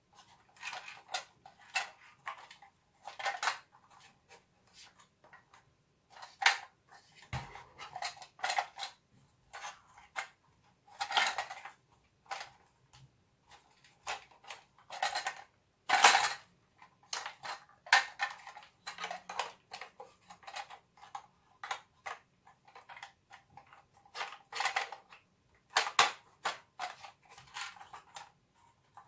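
Hard plastic parts of a toy bulldog and its orange base being handled and fitted together: a string of irregular clicks, taps and small rattles of plastic on plastic, with one duller knock about seven seconds in.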